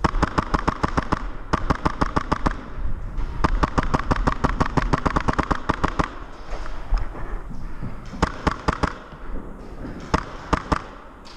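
Airsoft gun firing on full auto, about a dozen shots a second: three long bursts in the first six seconds, then two shorter, quieter strings of shots.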